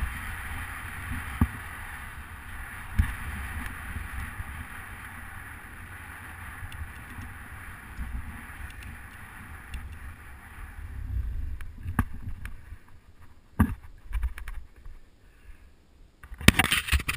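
Wind rushing over the microphone and tyres running on asphalt as a recumbent cycle rides at speed, with a few sharp knocks from bumps in the road. The noise dies down in the last few seconds, then a loud scuffing burst comes near the end.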